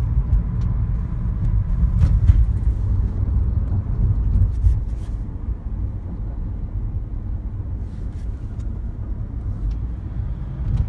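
Toyota Prius engine running with a low, uneven rumble that eases slightly about halfway through; the uploader puts the knocking and juddering down to an engine misfire.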